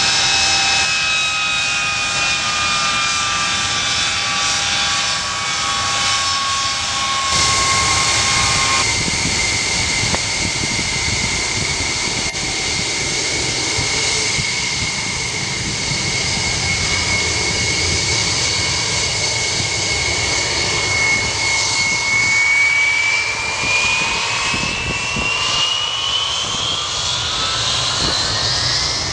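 Ilyushin Il-76TD's four Soloviev D-30KP turbofans running at taxi power, a steady jet whine over rushing noise. About three-quarters of the way through the whine starts rising steadily in pitch as the engines spool up for the takeoff run.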